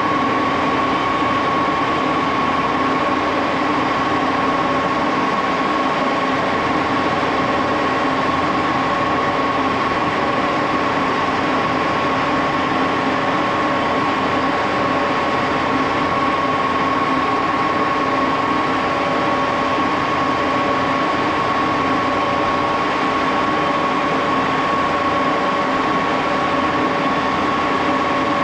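Old Axelson gear-head engine lathe running steadily, its geared headstock giving a constant pitched hum over the machine noise.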